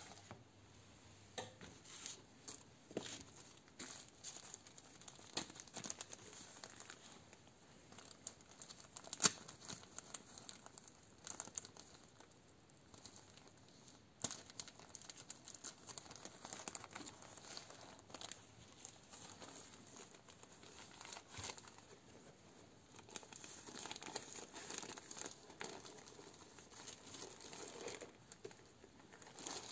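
Thin plastic bags rustling and crinkling as hands open and handle them. Scattered short, sharp crackles come from the bags, filled with potting soil and rooted grape cuttings.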